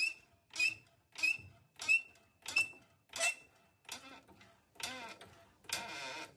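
Hydraulic floor jack being pumped by its handle to raise a pickup truck: six even strokes about two-thirds of a second apart, each with a short squeak. Two longer, scraping-like sounds follow near the end.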